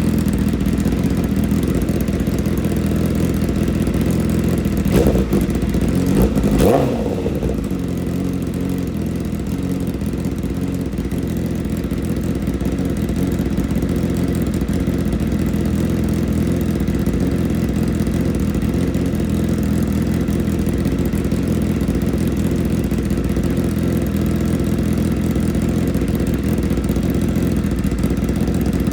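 Motorcycle engine idling steadily, revved briefly twice about five and six and a half seconds in before dropping back to idle.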